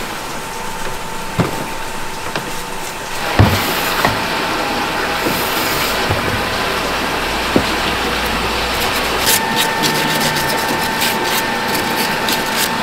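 Steady factory machinery hum with occasional hard knocks of earthenware pots being set down on their stacks, the loudest about three and a half seconds in. In the last few seconds a second steady tone and a rapid patter of small clicks join the hum.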